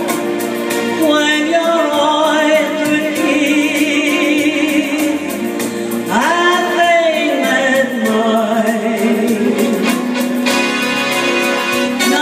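A woman singing a slow song into a microphone through a PA, over backing music, with a wavering vibrato on her held notes and sliding pitch changes.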